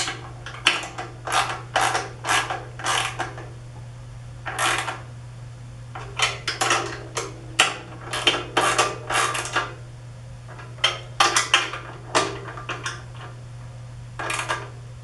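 Hand wrenches tightening the bolts and lock nuts of a screen-printing press's registration bearing bracket: short bursts of ratcheting and metal clinking in irregular runs, two or three a second, with pauses in between, over a steady low hum.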